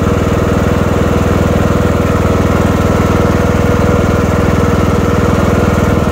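Lawn mower engine running steadily while cutting grass, an even, unbroken drone.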